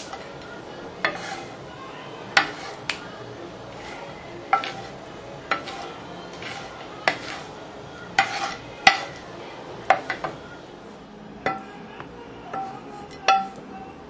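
Metal kitchen utensil stirring and clinking against cookware: irregular sharp clinks, roughly one a second, each with a short ring.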